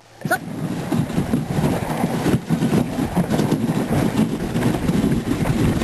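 Dog sled moving over snow: a steady rough scraping and clattering of the runners and sled frame, coming up sharply about a third of a second in.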